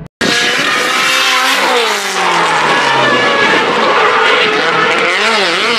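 Drift car sliding under power: the engine runs at high revs with tyres screeching as the car slides. The engine pitch falls about two seconds in, then wavers up and down near the end as the throttle is worked.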